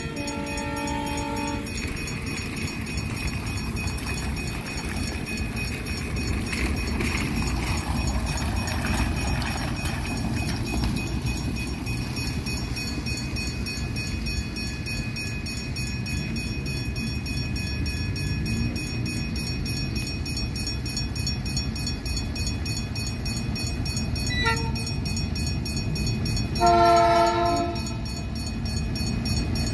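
ALCo RSD-16 diesel locomotives approaching with a freight train, their engines rumbling steadily. The locomotive's chord horn sounds briefly at the start and again near the end in a blast of about a second and a half.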